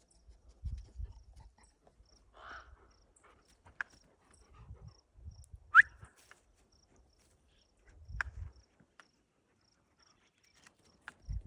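An insect chirping steadily, about two short high chirps a second. Low thumps come and go around it, and there are a few sharp clicks, the loudest nearly six seconds in.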